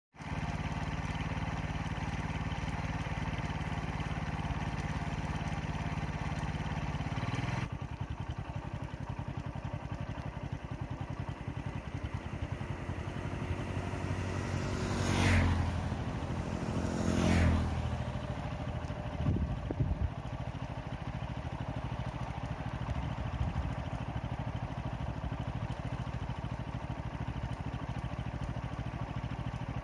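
An engine idles steadily and stops about eight seconds in. Past the middle, motorcycles pass close by on the wet road: two loud engine passes about two seconds apart, each rising and then falling in pitch.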